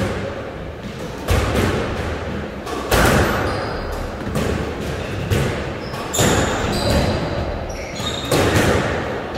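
Squash rally: the ball cracking off rackets and the court walls about once a second at uneven intervals, each hit echoing in the hall, with short high squeaks of court shoes on the wooden floor between hits.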